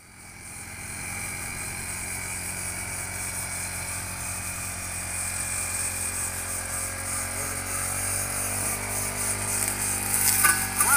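Backpack brush cutter's small engine running steadily, fading in over the first second.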